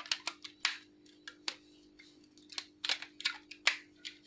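Irregular sharp clicks and taps, about a dozen, from handling a smartphone and its parts during a screen-glass repair, over a faint steady hum.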